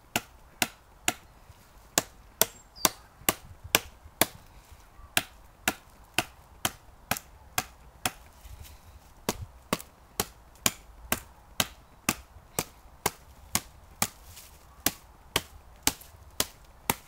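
Ka-Bar fighting knife chopping into a wooden branch: a long, steady series of sharp blade-on-wood chops, about two a second.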